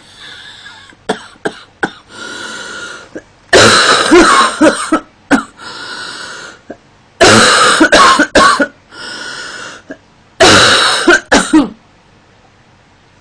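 A woman coughing in three loud fits of several sharp hacks each, about three and a half seconds apart, with drawn breaths between them.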